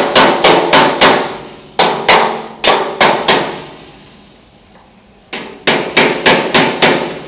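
A hammer tapping a small steel tab over onto a 1932 Ford chassis frame rail. The metal blows are sharp and come in quick runs of about three a second, each with a short ring. There is a pause of about two seconds in the middle.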